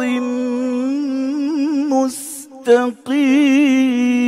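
Male qari's voice in melodic Quran recitation, drawing out the last syllables of a verse in long held notes with wavering ornaments. A short break comes about two seconds in, and a new sustained note begins about three seconds in.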